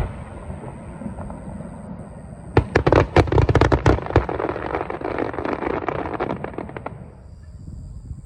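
Aerial fireworks: a quick volley of sharp bangs about two and a half seconds in, followed by a dense crackling that thins out and fades over the next few seconds.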